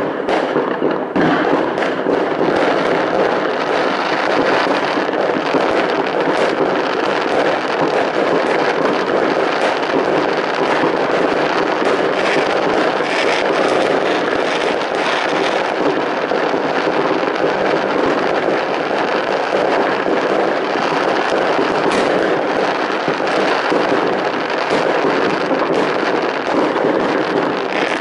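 Many fireworks and firecrackers going off at once, their bangs and crackles running together into a continuous din with no pauses.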